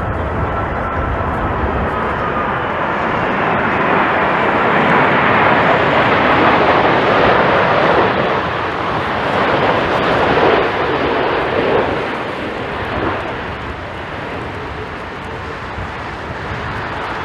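Jet airliner's engines passing close by on landing, the rush of noise swelling to a peak about six to ten seconds in and then fading. A faint falling whine sits under it in the first few seconds.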